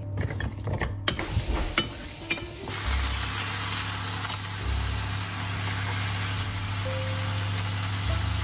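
Light clicks and taps of cut radish pieces dropping into an oiled pan. From about three seconds in, a steady frying sizzle as marinated chicken breasts are laid into the hot pan.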